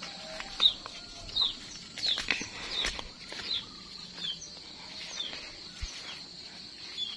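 A bird repeating a short, high chirp that falls in pitch, about once every three-quarters of a second, over a steady high-pitched insect hum. A few soft knocks and rustles come in between.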